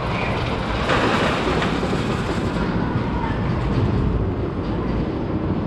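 Steel roller coaster train rumbling and clattering along its track, a little louder about a second in.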